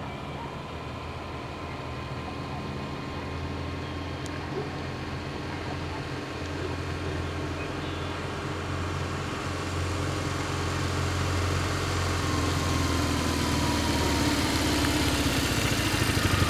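2008 BMW R1200GS air/oil-cooled boxer-twin engine running at a low, steady pace as the motorcycle approaches, growing steadily louder.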